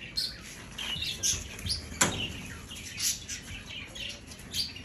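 Small birds chirping: many short, high chirps scattered through, with a single sharp knock about two seconds in.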